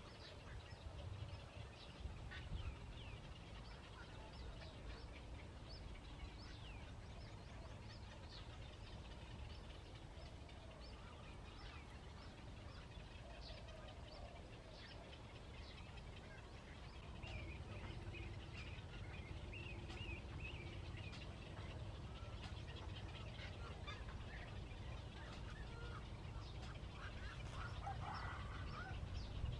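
Birds calling: many short, high chirps throughout, with a louder, lower call cluster near the end, over a steady low rumble.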